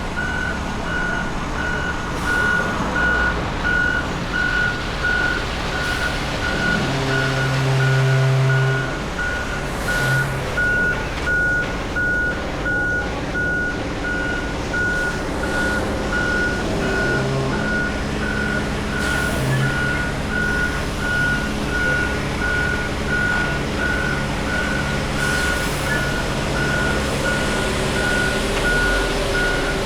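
Concrete truck's reversing alarm beeping steadily about once a second over its engine running. About seven seconds in, a louder low tone sounds for about two seconds.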